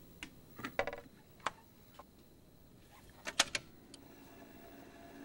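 A record player being handled: a handful of separate clicks and light knocks as a vinyl record is set on the platter and the tonearm is brought over to it, the loudest about three and a half seconds in, with faint hiss between them.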